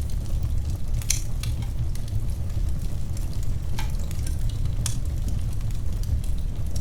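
Wood fire in a fireplace crackling: scattered sharp pops and snaps, the loudest about a second in and near five seconds, over a steady low rumble of the flames.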